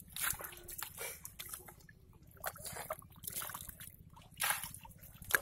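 Muddy water sloshing and squelching in short, irregular wet splashes as catfish thrash in a shallow mud hole, with a louder splash about four and a half seconds in and another near the end.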